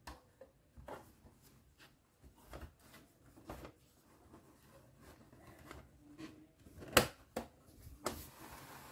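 Small plastic cabinet doors of a toy miniature kitchen being opened and closed by hand: light scattered plastic clicks and taps. The loudest is a sharp click about seven seconds in, with another just after, and a short rubbing sound near the end.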